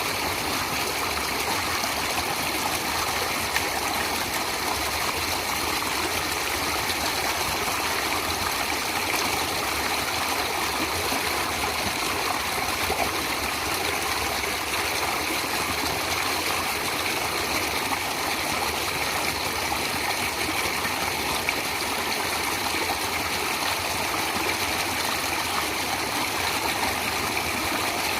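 A stream of running water flowing steadily, a continuous rushing with a faint trickle in it, unchanging throughout.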